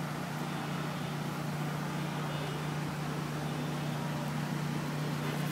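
Steady outdoor urban background noise with a constant low hum, like engines or machinery running somewhere nearby, unchanging throughout.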